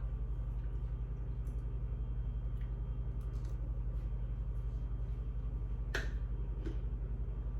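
Electric back massager running against her back: a steady low hum that pulses quickly and evenly, with two light clicks about six seconds in.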